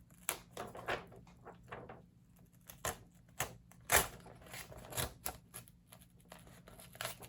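Crisp paper crackles and snaps at irregular intervals, the strongest about four seconds in: the pages of an old book being handled as a plate is worked free of its binding.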